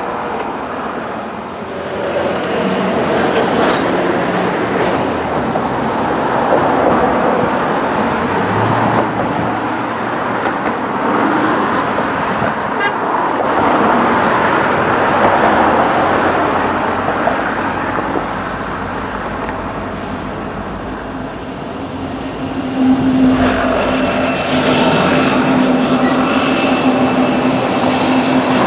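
Steady rumbling noise of trains and traffic, then about 23 seconds in the horn of an approaching Norfolk Southern SD70ACe diesel locomotive sounds a chord, held to the end.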